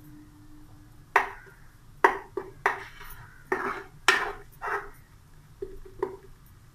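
Wooden spatula scraping and knocking against a non-stick frying pan while garlic and ginger paste is stirred in a little oil: about nine sharp strokes at an uneven pace.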